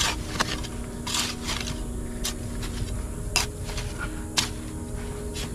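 A long-handled hoe chopping and scraping into loose dirt: about ten strokes, irregularly spaced, roughly one every half second to a second.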